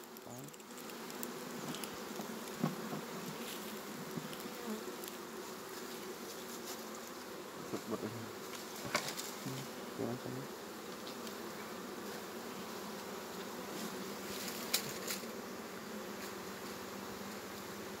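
Honeybees buzzing steadily around an opened wooden hive, a continuous hum with single bees passing close now and then. A few faint clicks come through, about 3, 9 and 15 seconds in.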